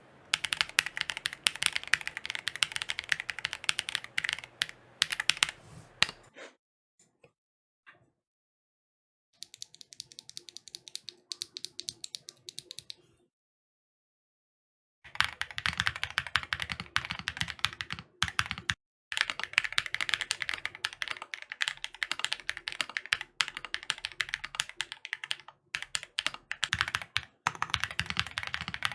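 Fast typing on a custom mechanical keyboard with Red Jacket 2.0 linear switches (nylon housings, HPE stems), a dense run of keystrokes with the odd deeper spacebar stroke. The typing stops about six seconds in, comes back softer for a few seconds, pauses again, and resumes loudly about halfway through.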